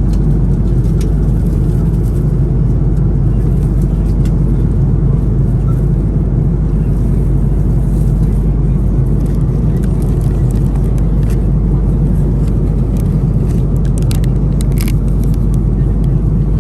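Steady low rumble of airliner cabin noise inside an Airbus A330-200, the drone of engines and airflow heard from a seat in the main cabin. A few faint clicks come near the end.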